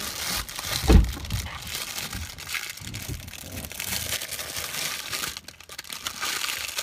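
Crinkling and rustling close to the phone's microphone, as something is handled and rubbed against it, with a heavy thump about a second in.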